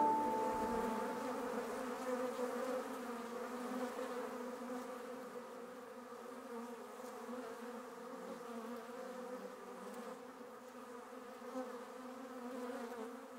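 Honeybee swarm buzzing: a steady hum of many bees in flight that slowly fades.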